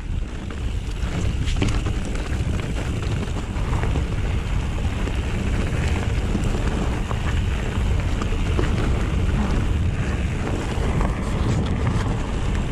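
Wind buffeting the action camera's microphone while riding a mountain bike down a wet, muddy dirt trail, over the steady rolling rumble of the tyres, with a few light knocks.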